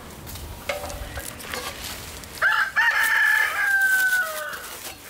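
A rooster crowing, about two and a half seconds in: short opening notes, then a long held final note that trails off, with a fainter call just before it. Light rustling and handling noises underneath.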